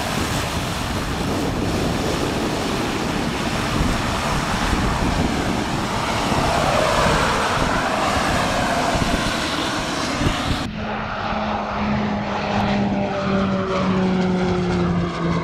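Beechcraft King Air 90 with GE turboprop engines in flight: a steady rush of engine and propeller noise, then, after a cut about two-thirds in, the propeller drone of the plane passing, slowly falling in pitch as it moves away.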